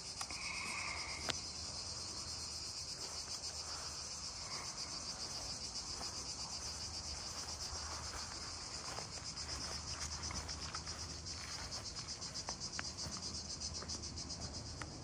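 Cicadas singing in a continuous high, finely pulsing chorus, with a single sharp click about a second in.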